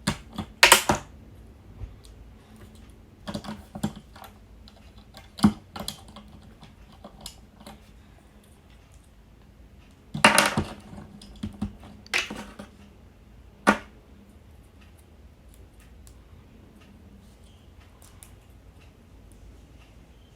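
Small plastic Lego pieces clicking and clattering as they are handled, with scattered light clicks and a few louder rattling bursts.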